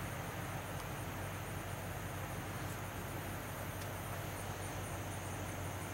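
Quiet outdoor riverside ambience: a steady faint hiss and low hum, with faint, evenly repeated high chirps of insects.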